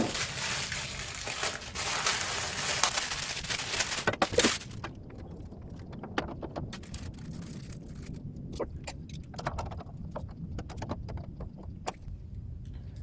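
Rustling of packaging for the first few seconds, then scattered light clicks and knocks as parts of a new thickness planer are handled.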